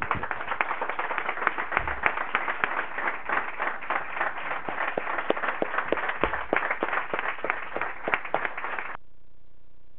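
A small group applauding: many hands clapping together, which stops abruptly about nine seconds in.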